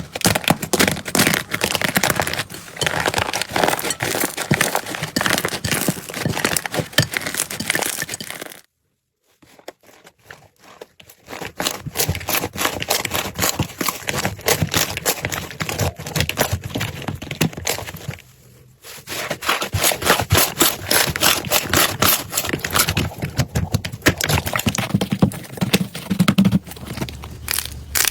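Slime being squished and pressed, giving dense, rapid crackling and popping. The sound breaks off into near silence for a couple of seconds about a third of the way in, and dips briefly again about two-thirds in.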